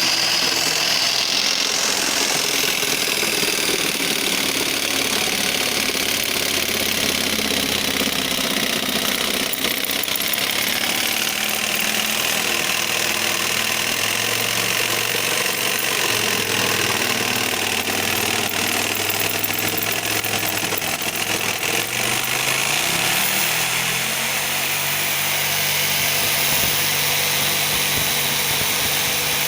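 Electric jigsaw cutting through wood, its motor and reciprocating blade running continuously, with the pitch shifting now and then as the load on the blade changes.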